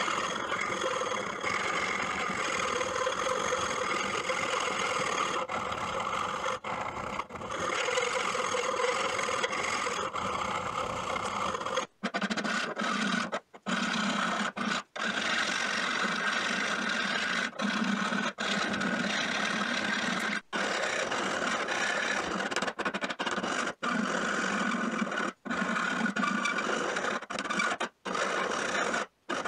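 Flat hand file scraping across the steel jaws of old pincers in steady strokes, breaking off briefly several times. From about twelve seconds in, a lower ringing note runs under the scraping.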